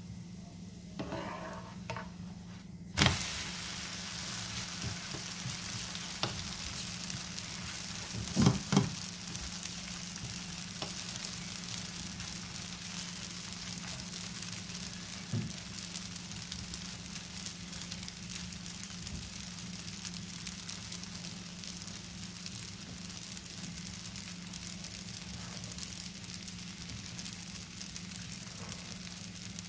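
Crepe sizzling in a hot frying pan. The sizzle starts suddenly with a sharp slap about three seconds in, as the crepe is turned over and its uncooked side lands on the pan, then keeps on as a steady hiss. Two knocks come a few seconds later.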